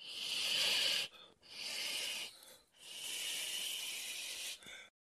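Three hisses, the first two about a second each and the last nearly two seconds long, with short gaps between them.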